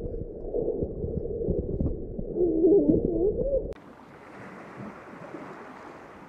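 Muffled underwater sound picked up by an underwater camera: low sloshing and soft knocks, with a wavering tone from about two and a half seconds in. About three and a half seconds in it cuts sharply to a quieter, airier hiss of wind over the sea.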